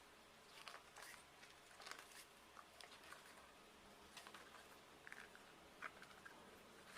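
Faint rustling and scattered light taps from a K-pop CD album being handled, its pages and paper inserts moved about.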